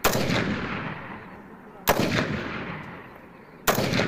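Three rifle shots about two seconds apart, each followed by a long fading echo.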